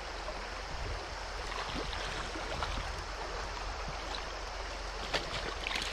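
Shallow creek water flowing over stones: a steady rush, with a couple of faint clicks near the end.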